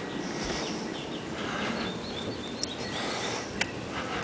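Outdoor background ambience with faint bird chirps over a steady hiss. Two sharp clicks come about two and a half and three and a half seconds in.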